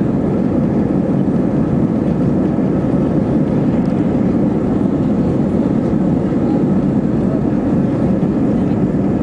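Airbus A320 cabin noise at a window seat over the wing: a loud, steady rumble of the jet engines and the airliner rolling along the runway.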